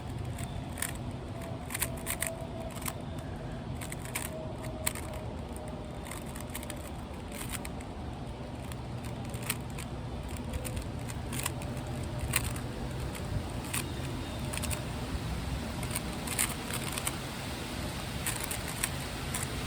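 Rubik's cube being turned fast in a speedsolve: a stream of irregular plastic clicks as the layers snap round, over a low rumble of wind on the microphone.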